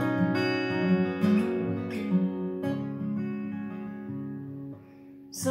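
Acoustic guitar, capoed, played in a gentle picked-and-strummed intro; the last chord is left to ring and fades out about four seconds in. A short sharp intake of breath comes right at the end.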